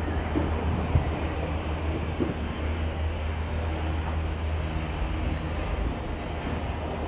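Steady low rumble of city street traffic, with engines running, and a short sharp knock about a second in.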